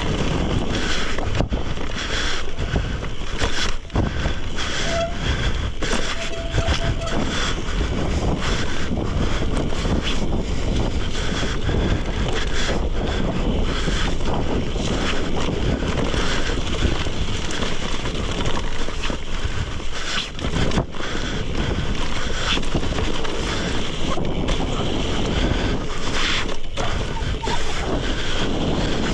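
Wind noise on the microphone mixed with the steady roar of gravel-bike tyres on a dirt road, broken by many small knocks and rattles as the bike jolts over bumps on a descent.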